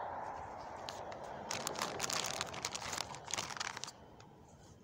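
Rustling and crinkling handling noise close to the microphone, densest from about one and a half to four seconds in, then fading.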